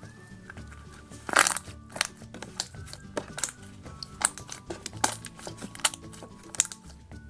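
Butter slime with foam beads being squished and poked, giving irregular sharp crunchy clicks and pops, the loudest about a second and a half in, over background music.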